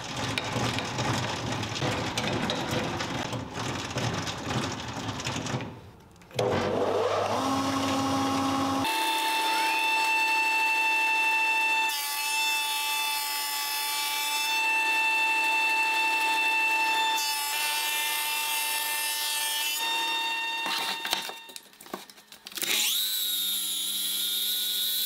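Woodworking machinery. A thickness planer spins up and runs with a steady whine, and its cutter noise gets louder twice as pine boards are fed through it. Near the end a Festool Kapex KS 120 EB sliding miter saw spins up to a high whine.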